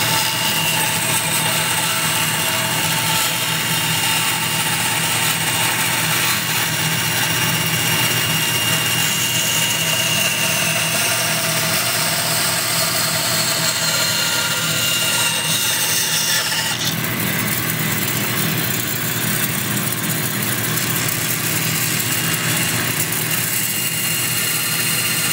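Bandsaw running with a steady hum and high whine, its blade cutting through a wooden spoon blank as it is fed by hand. The higher part of the sound drops off abruptly about two-thirds of the way through.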